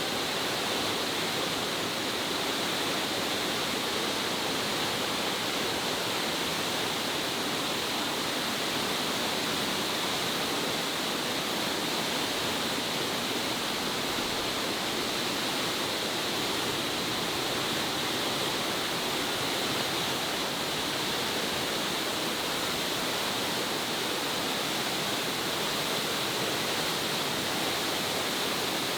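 The waterfall Sgwd yr Eira pouring: a steady, unbroken rush of falling water.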